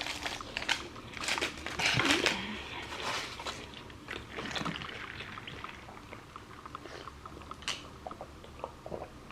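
A person biting and chewing food close to the microphone. Crisp, crunchy bites come in the first few seconds, followed by quieter chewing and mouth clicks.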